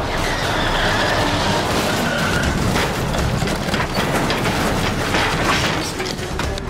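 A car running off the road and crashing down through bushes and brush, its engine running, with branches cracking and snapping against the body throughout.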